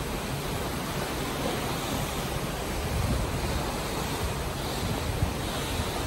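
Ocean water rushing steadily, with wind.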